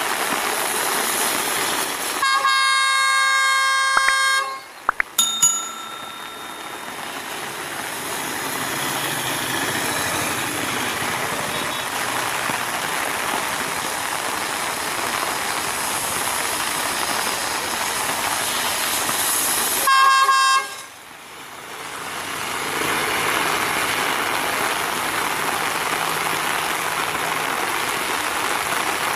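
Heavy rain hissing steadily while a CRRC-built Class S14A diesel multiple unit approaches slowly. Its horn sounds a long blast a couple of seconds in, followed by two or three short toots, then a short blast about twenty seconds in. The diesel engine's low hum grows louder near the end.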